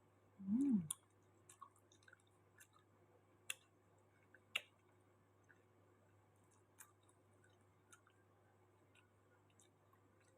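A short hummed 'mmm' about half a second in, rising then falling in pitch, followed by scattered soft clicks and smacks of chewing, with two sharper clicks around the middle.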